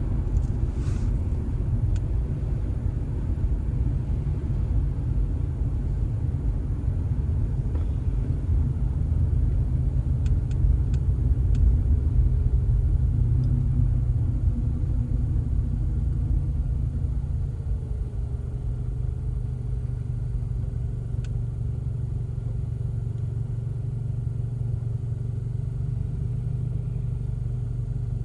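Car driving, a steady low rumble of engine and road noise that grows a little louder about halfway through, then eases.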